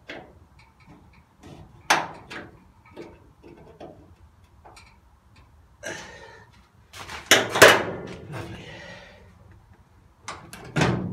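Metal clanks and knocks from a hand tool being worked against the bare steel floor panels of a car shell, scattered and irregular. The loudest knocks come about seven to eight seconds in, with another near the end.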